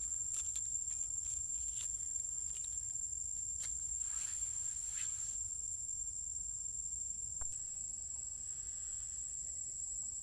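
Insects singing in one steady high-pitched drone, with scattered soft rustles and clicks over the first half.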